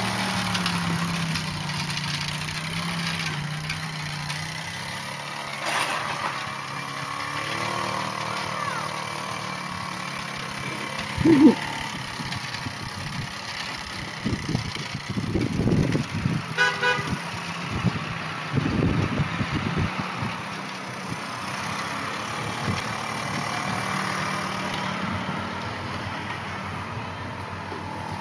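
Small quad-bike engine running, its note rising and falling as it tows a sled through snow. Irregular low rumbles come through in the middle, the loudest about eleven seconds in, and a brief high toot sounds a little past halfway.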